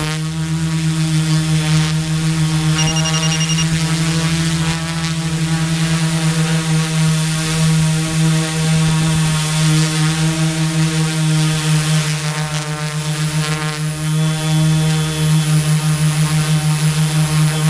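Tarot Iron Man 650 drone in flight: its Turnigy Multistar 4822-690Kv brushless motors and propellers give a loud, steady buzzing hum that flutters and pulses as the motors adjust speed.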